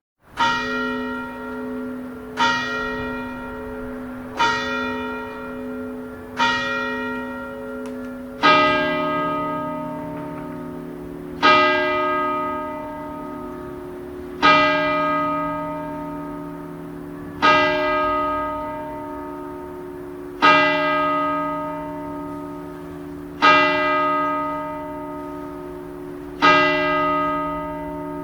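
Church bell tolling: four strokes about two seconds apart, then a lower-pitched bell tolling slowly about every three seconds, each stroke ringing on and fading before the next.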